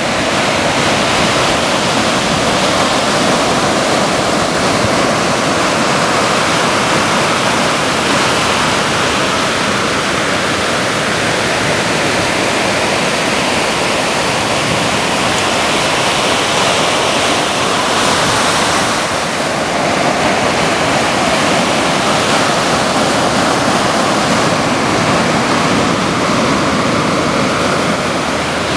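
Breaking ocean surf: a steady, unbroken rushing wash of whitewater.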